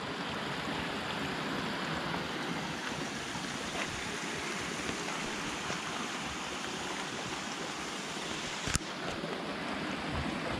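Steady rushing of water, such as a mountain stream, with one sharp click near the end.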